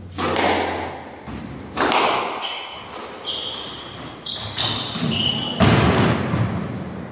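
Squash rally: several hard racket hits and ball strikes on the walls, each echoing in the court. Players' shoes squeak sharply on the wooden floor between the shots.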